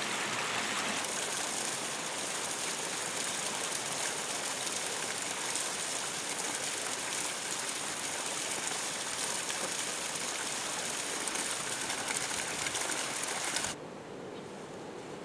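Thermal spring water running and splashing in a thin fall down a mineral-stained rock face, a steady rush. Near the end it cuts abruptly to a quieter, lower steady hiss.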